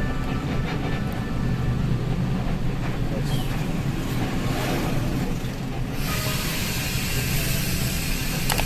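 Moving intercity bus heard from inside its cabin: a steady low engine and road rumble. A hiss joins it in the upper range about six seconds in.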